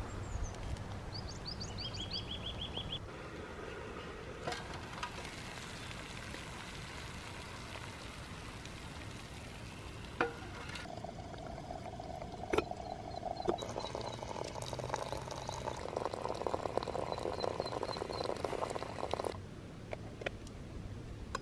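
Birds chirp briefly in the first few seconds. Later, hot water runs from a samovar into a glass teapot for about eight seconds and stops suddenly, with a few sharp metal clinks around it.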